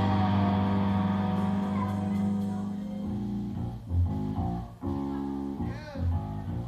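Live band's amplified electric guitar and bass. A held chord rings and fades over the first three seconds, then the instruments pick out short separate notes.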